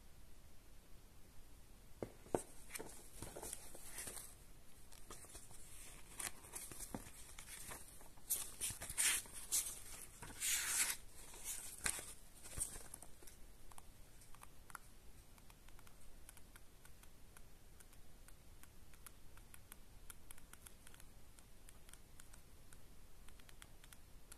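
Paper pages of a printed instruction booklet being turned and handled with gloved fingers: dry rustling and flapping, loudest in a cluster of quick page flips a third of the way in, then only faint small ticks and rubs.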